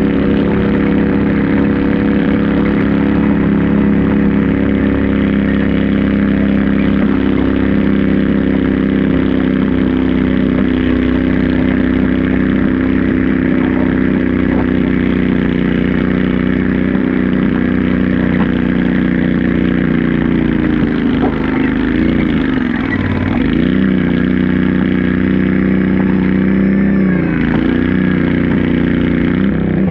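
Garden tractor engine running hard while pulling a weighted stoneboat sled down the dirt track. Its pitch holds steady for about twenty seconds, then dips and wavers a few times, and drops away right at the end.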